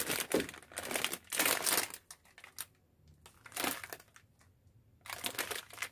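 Plastic Chapagetti instant-noodle packets crinkling as they are handled, in four separate spells of rustling with short quiet gaps between them.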